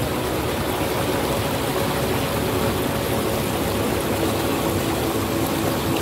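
Stream water rushing and splashing steadily over a shallow, rocky cascade.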